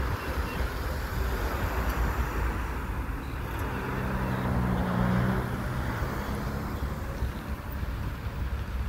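Road traffic in a stopped queue: engines idling with a steady low rumble, and a low engine drone that swells and fades between about four and six seconds in.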